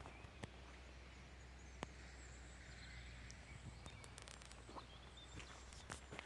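Faint outdoor ambience: distant birds chirping in short high calls, with a few sharp scattered clicks.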